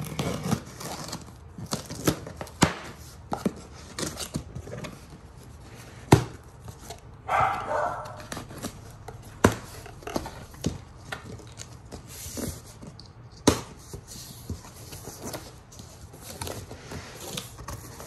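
A knife slitting packing tape on a cardboard box and the flaps being pulled open: a string of sharp, irregular clicks and knocks with scraping and rustling cardboard, and a longer rasping tear about seven seconds in.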